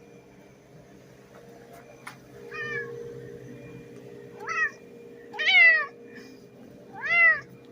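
Domestic cat meowing four times in a row, each call a short arched meow, the last two the loudest.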